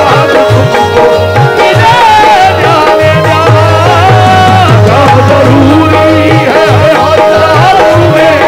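Instrumental qawwali interlude: an electronic keyboard plays a bending, ornamented melody over steady held harmonium tones, with a driving hand-drum rhythm underneath.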